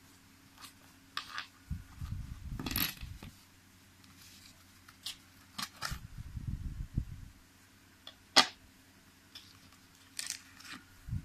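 Handling of a zippered fabric tool case for e-cigarette coil building and its small metal tools: the case is zipped open in the first few seconds, then scattered clicks and taps with soft thumps as the tools are handled, the sharpest click about eight seconds in.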